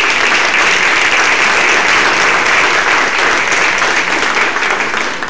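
Audience applauding, a dense patter of many people clapping that thins out near the end.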